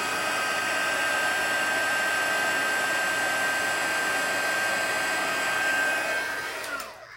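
Handheld embossing heat tool blowing hot air steadily onto a card to melt clear shimmer embossing powder: a rush of air with a steady whine over it. Near the end the whine falls in pitch and the sound fades as the tool winds down.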